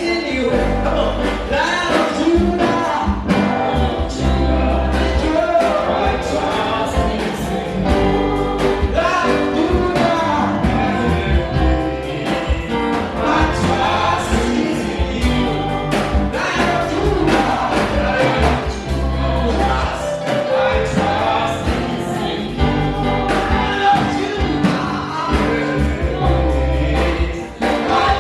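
Gospel worship song: a choir singing over instrumental backing with a steady bass and beat.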